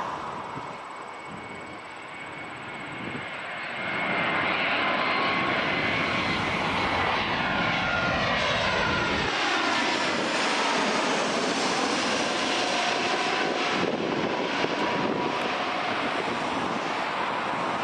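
Delta Airbus A320-family jet's twin turbofan engines on final approach with the gear down, passing overhead. The sound swells about four seconds in, and whining engine tones slide down in pitch as the jet goes by. A steady roar follows as it heads away toward the runway.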